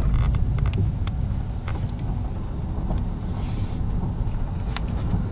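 Low, steady rumble of a car moving slowly, heard from inside the cabin, with a few small clicks and a brief hiss about three seconds in.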